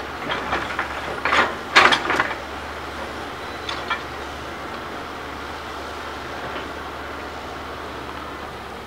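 Tracked hydraulic excavator working rubble and trash: its engine runs steadily while the bucket scoops with a clatter of rock and debris, loudest about two seconds in, followed by a couple more knocks near four seconds.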